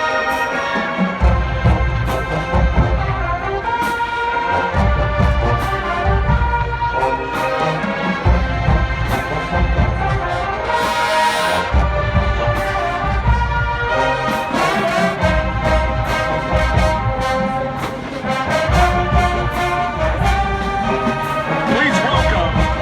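Marching band brass playing held chords of a slow tune, with deep low notes that drop in and out every few seconds.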